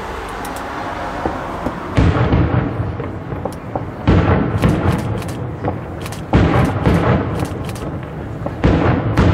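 Fireworks shells bursting, four heavy bangs about two seconds apart, each followed by a rumbling echo and scattered crackling.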